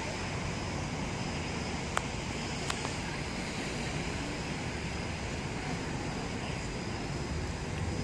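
Steady outdoor background rumble and hiss, with two short sharp clicks about two seconds and nearly three seconds in.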